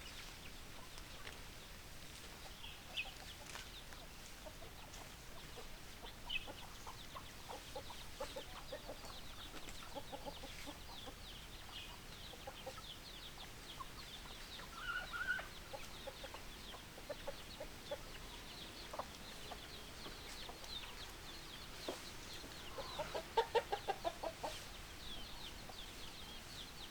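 Domestic hens clucking on and off, with a quick run of louder clucks about 23 seconds in and one short higher call around the middle. A steady chatter of short, high chirps runs underneath.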